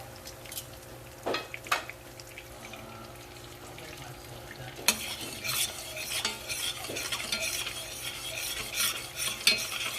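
A spoon stirring gravy in a pan on the stove as it heats toward the boil: a couple of sharp taps about a second in, then busier, irregular scraping and crackling from about halfway through.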